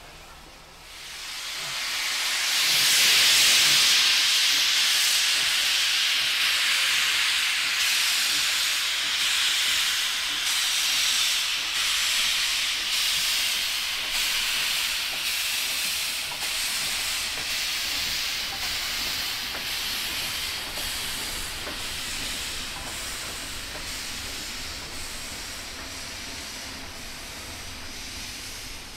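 Victorian Railways K class steam locomotive K153 pulling away, with a loud hiss of steam from its open cylinder drain cocks starting about a second in, and faint regular beats running through it. The hiss fades slowly as the train moves off.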